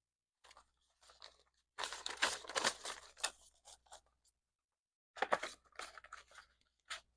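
Paper banknotes and cash envelopes being handled, rustling and crinkling in two stretches with a short pause about four seconds in.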